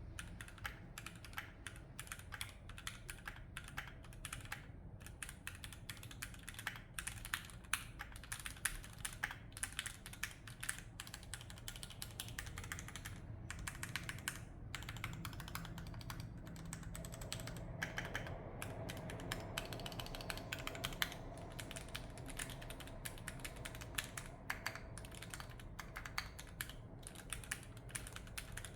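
Typing on a Keychron Q5 mechanical keyboard with Gateron G Pro Red linear switches, a steel plate and double-shot PBT keycaps: a continuous clatter of keystrokes, several a second.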